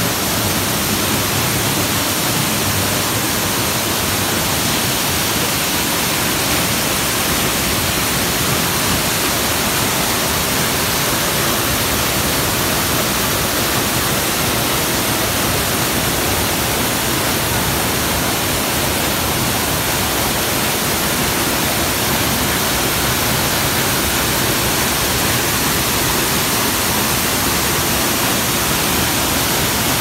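Dry Falls, a tall waterfall on the Cullasaja River, heard up close from behind the falling water: a loud, steady, unbroken rush of water crashing down.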